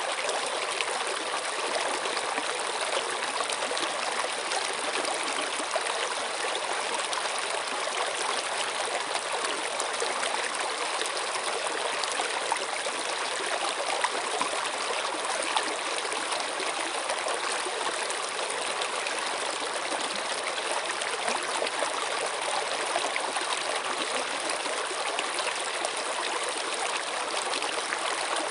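Running water: a stream flowing and trickling over stones, a steady splashing rush.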